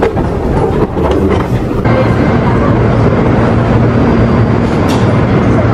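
Metro train at the platform behind screen doors: a steady rumble with a low hum from its motors, setting in about two seconds in after a few scattered knocks.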